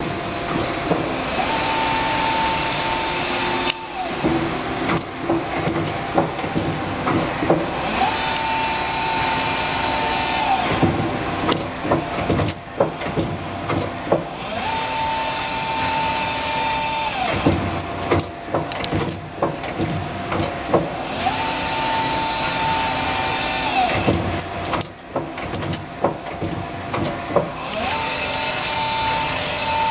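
Daewoo Lynx 200A CNC turning center running a cycle. A whine rises, holds for about two seconds, then falls away, as with a spindle speeding up and slowing down. This repeats about every seven seconds, five times, over a steady hiss with scattered clicks and knocks.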